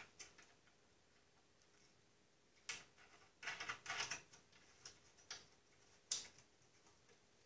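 Light clicks and taps of small metal parts being handled as a nut is fitted by hand onto an ignition switch. After a quiet start there are a few scattered clicks from near the middle on.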